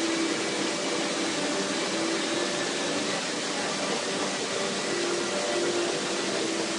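Steady, even hiss with faint humming tones underneath, like a fan or air conditioner running.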